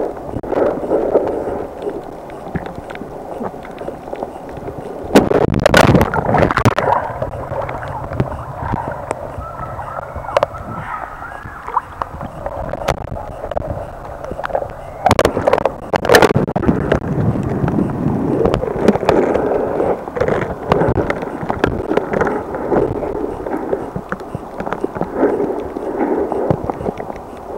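Muffled underwater sloshing and gurgling of water heard through a camera held just below the surface, with louder splashy bursts around six seconds in and again around fifteen to sixteen seconds in.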